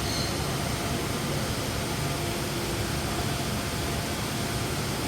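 Steady, even hiss and rumble of background noise with no clear events. There is a brief faint high chirp right at the start.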